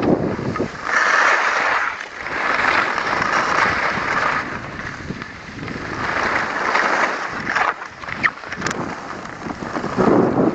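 Skis hissing and scraping over packed snow in several swelling surges, with wind buffeting the microphone in rumbling knocks near the start and again near the end.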